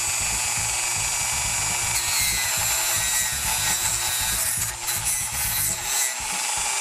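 Dremel rotary tool spinning a white detail abrasive brush whose bristles rub across the back of a scroll-sawn wood piece, scrubbing off the tear-out fuzz along the cut edges. A steady high whine with a rubbing, scrubbing noise; the whine shifts pitch about two seconds in, and the scrubbing turns uneven from about four and a half seconds in.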